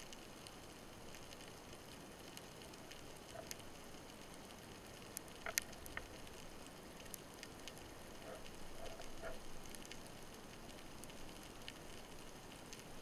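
Faint underwater crackling: a steady scatter of tiny clicks over a soft hiss, with a few sharper clicks about five and a half to six seconds in, heard underwater.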